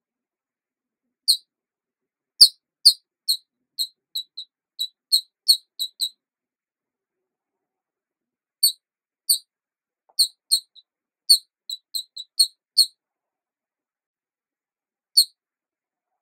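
Short, high-pitched chirps, a couple of dozen in all, falling in two quick runs with a pause of about two seconds between them and a lone chirp near the end. Each chirp cuts off sharply into complete silence, and the ball rolling on the floor cannot be heard.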